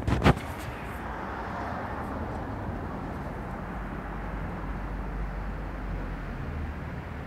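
Steady street traffic noise, with a single sharp knock just after the start.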